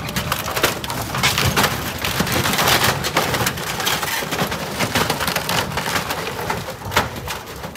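Wooden dock timbers cracking and splintering as a large yacht's bow crushes into the pier edge: a dense, continuous run of crackles and crunches, with the sharpest snaps about a second in and near the end.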